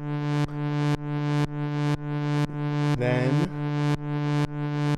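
Modular synthesizer patch playing a sustained pitched drone through voltage-controlled mixer VCAs. Its volume and brightness swell and then cut off sharply about twice a second: a fake sidechain-style pumping.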